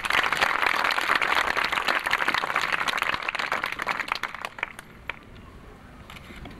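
Audience applauding, many hands clapping together, which thins out and dies away after about four to five seconds.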